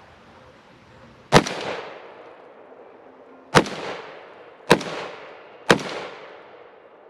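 Four rifle shots from a Springfield Armory Saint Victor AR-style rifle: one shot, then three more about a second apart. Each sharp report is followed by a rolling echo that fades over about a second.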